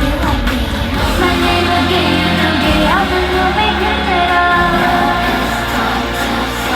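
Loud live K-pop performance: female vocals over a backing track with a heavy, steady bass.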